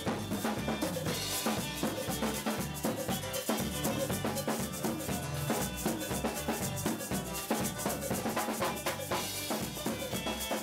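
A Cayman kitchen band playing an up-tempo tune: a nylon-string acoustic guitar strums over a steady beat of drums and percussion, with a bass line underneath.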